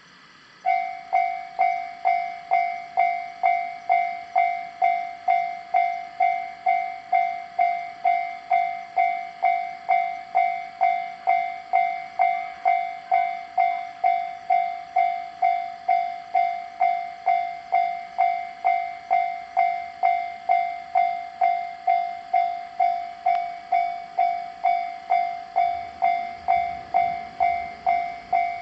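Japanese railway level-crossing warning bell ringing in an even clang-clang, a little under two strikes a second, each strike dying away before the next. It starts just under a second in, and a low rumble rises under it in the last few seconds.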